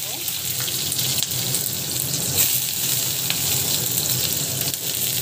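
Chopped onion and whole spices (bay leaf, cinnamon, star anise) frying in hot oil in a pan: a steady sizzle with small crackles.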